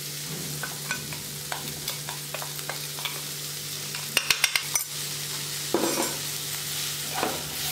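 Drumstick leaves and onions sizzling in oil in a nonstick frying pan as coarse ground peanut powder is poured in, with a steady low hum beneath. A quick series of sharp clicks about four seconds in.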